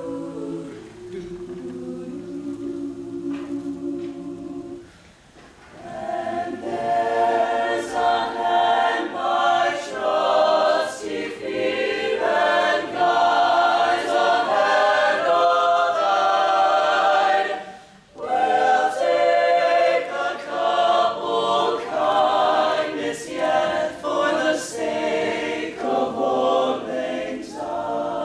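Mixed-voice choir singing. It starts softly in the low voices, the full choir comes in louder about six seconds in, and there is a brief pause near eighteen seconds before it carries on.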